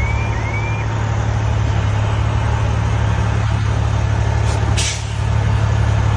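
Fire truck's diesel engine running steadily, heard from inside the cab as the truck pulls out on a call. A rising electronic siren tone repeats about twice a second and stops about a second in. A short hiss of air comes about five seconds in.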